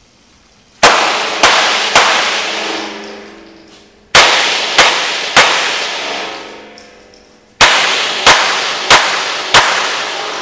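Handgun shots fired in three quick strings (three, three, then four), about two thirds of a second apart within each string. Each crack rings on in the long echo of an indoor concrete range.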